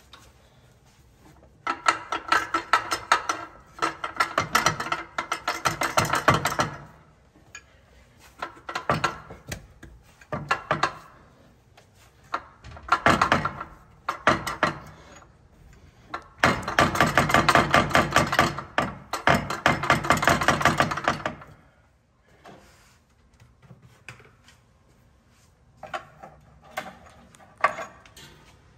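A chisel is driven between the aluminium cooling manifold and the cylinder head of a Detroit Diesel 6-71 in several bursts of rapid metal-on-metal strikes, the longest about five seconds. It is breaking the corrosion bond between the manifold and its steel studs.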